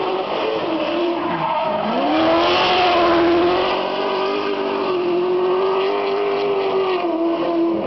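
Scion tC drift car's engine held at high revs as it slides sideways, rear tyres squealing and smoking. The revs dip and climb back about two seconds in, then hold steady.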